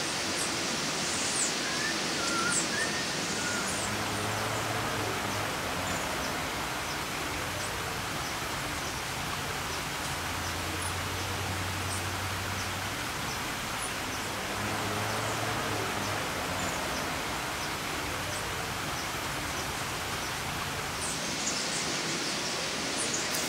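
Tropical rainforest ambience: a steady hiss of background noise, with short high chirps from birds or insects scattered through it and a few whistled notes near the start.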